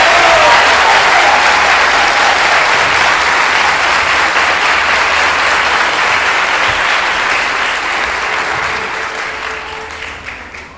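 Concert audience applauding in a dense, steady wash of clapping that dies away over the last few seconds, thinning to scattered individual claps.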